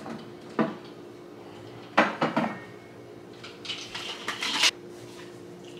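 A plastic shaker bottle is taken down from a kitchen cupboard and handled. There is a light knock, then a clatter of a few knocks about two seconds in, and a quick run of scratchy rattles about a second before the end.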